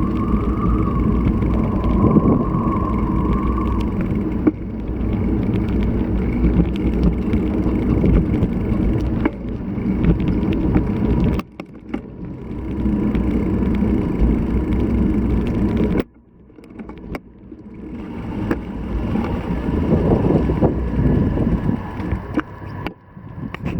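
Riding noise picked up by a bicycle-mounted action camera: a steady low rumble of wind and tyre noise with a faint thin whine. It drops away suddenly twice, about halfway through and again a few seconds later, then builds back up as the bike gets going again.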